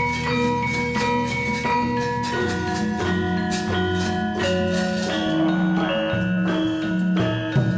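Central Javanese gamelan ensemble playing: bronze metallophones and gongs struck in a quick, steady pulse, their tones ringing on and overlapping.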